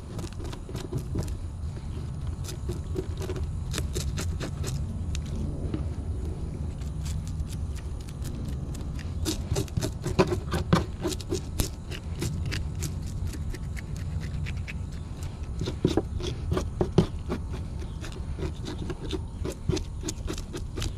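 Hunting knife scraping the scales off a bluegill: a run of quick, rasping scrape strokes, busier about ten seconds in and again a little past the middle.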